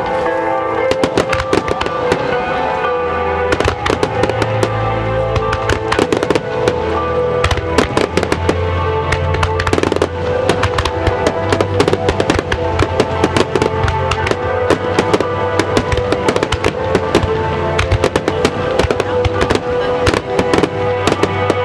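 Fireworks bursting and crackling in a dense, rapid barrage, over music with held notes and a deep bass line.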